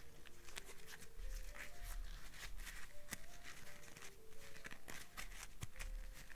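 Close-miked crinkling and crackling of a pink artificial rose being squeezed and rubbed by hand, with soft background music playing a slow melody of single notes.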